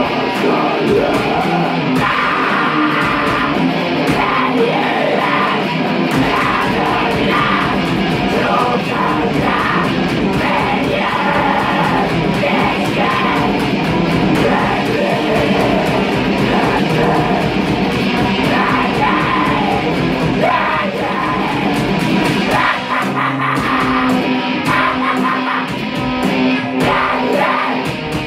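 Black metal song: a dense wall of distorted electric guitar, with harsh vocals over it.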